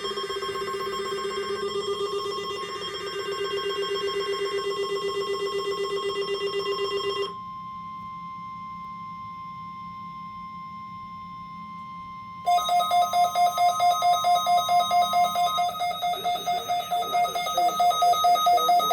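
Weather radio receivers sounding their alarms for a NOAA Weather Radio Required Weekly Test. A fast-pulsing buzzy alarm beep stops about seven seconds in, leaving the steady weather radio warning tone on its own. About twelve seconds in, a second receiver starts a louder, higher-pitched pulsing alarm beep.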